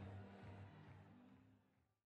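Faint background music fading out to silence over the closing seconds.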